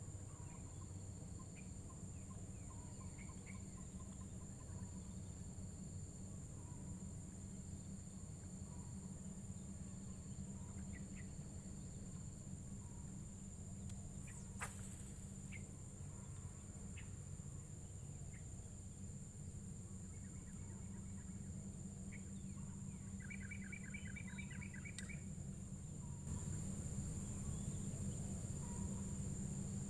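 Outdoor field ambience: a steady high-pitched insect drone over a low steady hum, with scattered short bird chirps. There is one sharp click around the middle and a quick trill of chirps about three-quarters of the way through.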